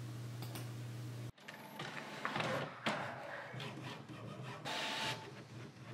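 Home inkjet printer running a print job: irregular whirring and clattering from its paper-feed rollers and print-head carriage, with clicks. This starts about a second in, after a steady low hum.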